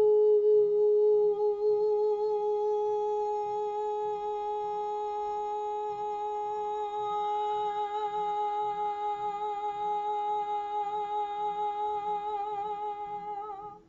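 A woman's voice toning a single long held note, hummed or sung on an open vowel, that wavers slightly in pitch in the second half and stops abruptly after about fourteen seconds. It is the healing "frequency" she channels for listeners to hear.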